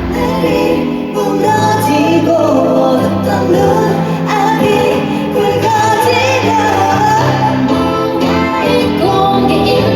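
K-pop girl group singing a pop song live over a backing track, with melodic female vocals above steady bass and chords.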